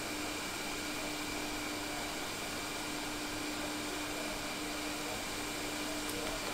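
Steady whirr of an electric fan running, with a constant low hum and a faint high whine.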